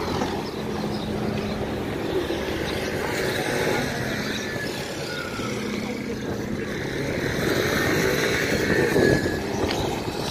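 Steady din of motor traffic with wind buffeting the microphone.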